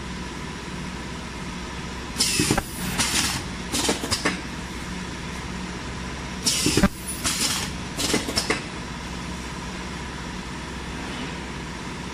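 Ultrasonic ear-loop welding machine for face masks running with a steady hum and a faint constant tone. Two clusters of short, loud air hisses come from its pneumatic welding head as it cycles, one about two seconds in and another about six and a half seconds in.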